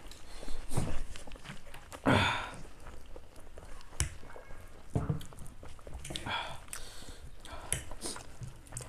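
Two people eating chow mein noodles: chewing with scattered light clicks of forks on plates, and a short breathy noise about two seconds in.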